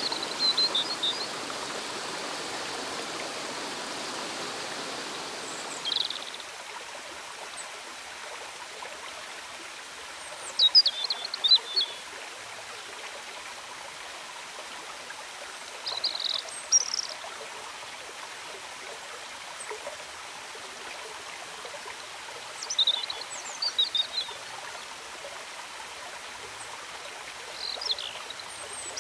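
Mountain stream rushing steadily over rocks, its lower part dropping away about six seconds in. A bird gives short clusters of high chirps every five or six seconds.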